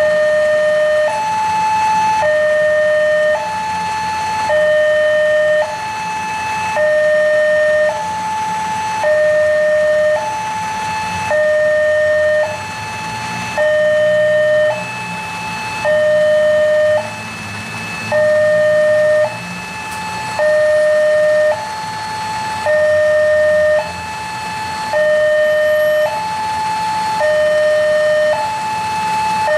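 Railway level-crossing warning alarm sounding a steady two-tone 'ding-dong', a lower and a higher note alternating about once a second, warning that a train is approaching and the crossing is closed.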